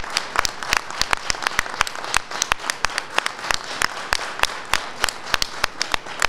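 Applause from a small group of people, with individual sharp hand claps standing out over a steady patter.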